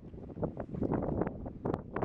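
Water splashing and lapping irregularly against a moving kayak's hull, with wind buffeting the microphone.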